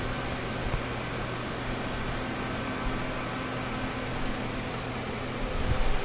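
Steady whir and hum of commercial kitchen fans and equipment, with a few soft low bumps near the end.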